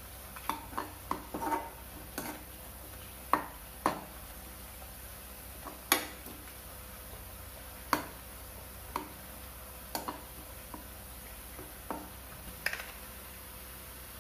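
Metal slotted spoon stirring onions in a nonstick kadai, knocking and scraping against the pan in sharp, irregular clacks. The clacks come thick in the first few seconds, then about one every second or two.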